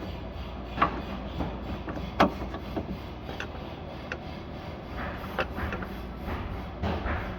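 Irregular clicks and knocks of tools and engine parts being handled during water pump and belt work. The sharpest knock comes about two seconds in, over a steady low hum.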